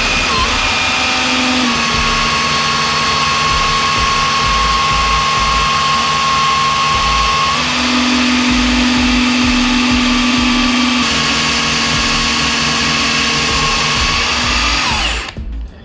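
Oil extractor pump running steadily, drawing engine oil up a hose pushed down the dipstick tube of a Yamaha TR-1 watercraft engine. It cuts off suddenly near the end.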